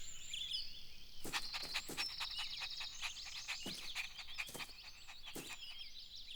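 Faint outdoor nature ambience: many small chirping and trilling calls, with scattered sharp clicks.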